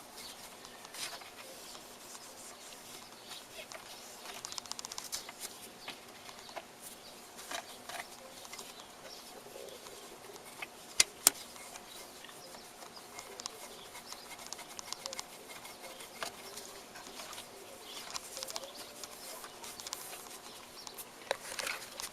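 Scattered light clicks and rubbing of hands working on a turntable's mechanism, with two sharp clicks close together about halfway through, over a faint steady hum.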